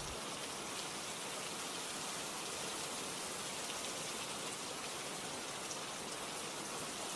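Steady rainfall hiss with faint scattered drop ticks.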